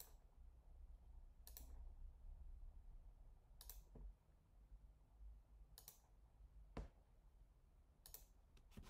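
Faint computer clicks, about one every two seconds, as points of a freeform curve are picked on screen, over near-silent room tone.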